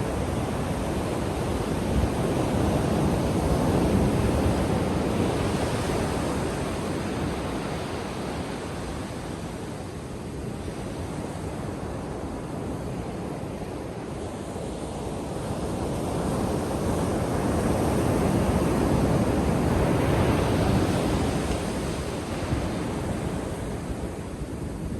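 Ocean waves breaking and washing onto a beach, a steady surf rush that swells louder twice: a few seconds in, and again about two-thirds of the way through.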